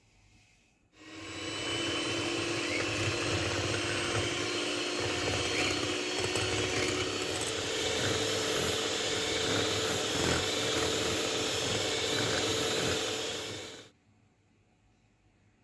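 Electric hand mixer running steadily at high speed, its twin beaters whipping eggs and sugar in a glass bowl. It starts about a second in and cuts off sharply near the end.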